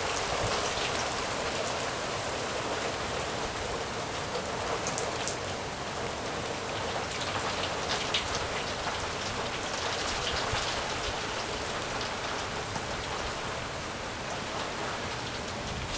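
Heavy rain falling steadily, an even hiss with a few nearer drops ticking now and then.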